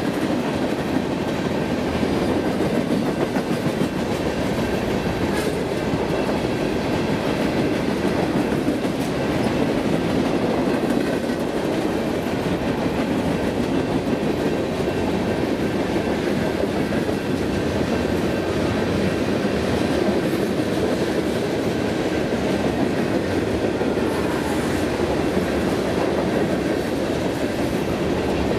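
Freight cars of a Union Pacific manifest train, tank cars and open-top hoppers, rolling past close at speed: a steady rolling noise of steel wheels on rail, with faint high ringing tones and a few sharp clicks.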